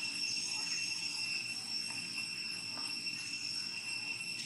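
A steady, high-pitched insect drone that holds one unchanging whine, with a few faint clicks scattered through it.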